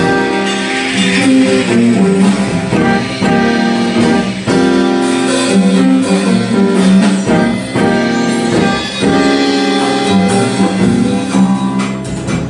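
Live band playing: guitar and piano with horns, sustained melody notes over a plucked, rhythmic accompaniment.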